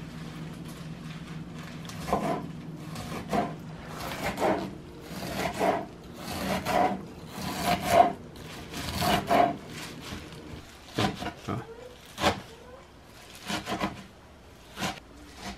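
Knife chopping curly kale on a wooden cutting board: crisp strokes through the leaves knocking on the wood at an uneven pace, about one a second, coming quicker and lighter near the end.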